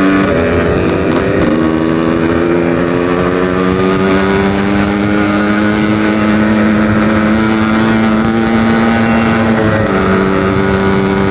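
Yamaha RX-King 135cc two-stroke single-cylinder engine with a Packing Power aftermarket exhaust, under way at a fairly steady throttle. Its pitch dips just after the start, climbs back a moment later, and steps down again near the end.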